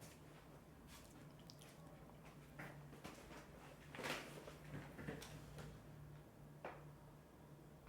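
Near silence: room tone with a steady low hum and a few faint scattered clicks, the loudest about four seconds in.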